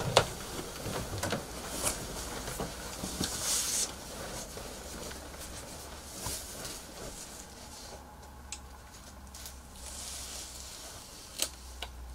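Bedding and clothes rustling with scattered soft knocks as two people climb onto a bed and settle, busier in the first few seconds, then quieter handling of a large book, with one sharp click near the end.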